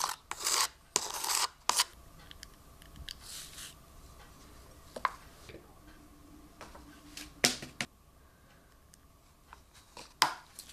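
Spatula stirring a gypsum-like casting compound in a plastic cup, with a few scraping strokes in the first two seconds. After that it is mostly quiet, with a handful of light clicks and knocks.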